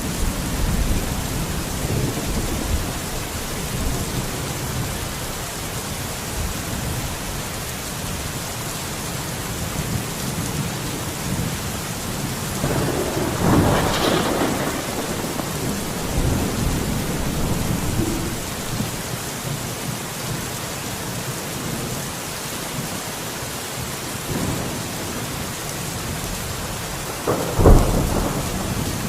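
Steady rain falling through a thunderstorm, with rolling thunder swelling about halfway through and a sharp, loud thunderclap near the end.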